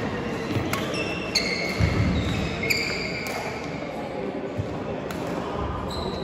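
Sports shoes squeaking on an indoor court floor, with a few sharp hits in between, as in a badminton rally. The squeaks come mostly in the first half, with one more near the end.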